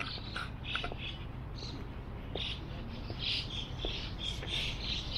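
Small birds chirping in the trees, a run of short high notes and calls, over a low steady background rumble.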